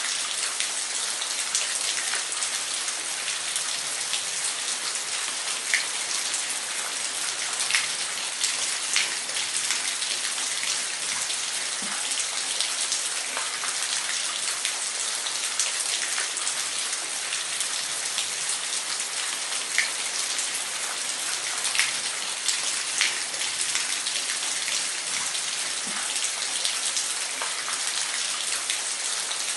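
Waterfall: a steady hiss of falling water, with small splashes and drips standing out now and then.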